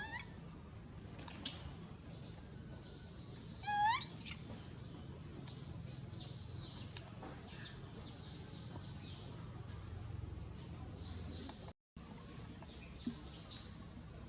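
A baby monkey's short, high-pitched call that rises in pitch, about four seconds in, with another at the very start. Faint high chirps sound through the rest.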